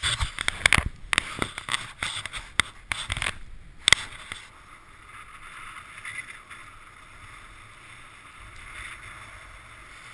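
Skis scraping and clattering on groomed snow as the skier pushes off, with a quick run of sharp knocks over the first four seconds. After that the skis settle into a steady hiss of gliding.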